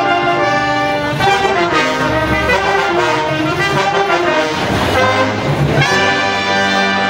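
Brass-led music playing, with held horn notes over a fuller band.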